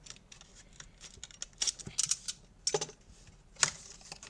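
Cardboard and plastic packaging of a cube box being handled while it is unpacked: scattered light clicks, taps and scrapes, with a sharper click about three and a half seconds in.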